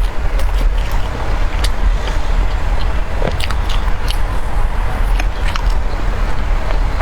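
Close-miked mukbang eating of a soft tiger skin dessert: chewing with scattered short mouth clicks and smacks, over a steady low rumble.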